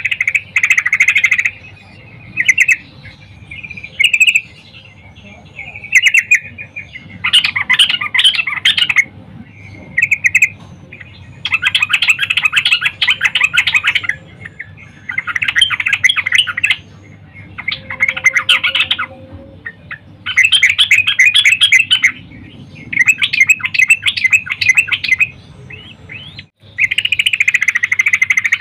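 Yellow-vented bulbul (trucukan) calling: a run of about ten fast chattering phrases, each a second or two long, with short pauses between. Presented as a female calling to draw males into song.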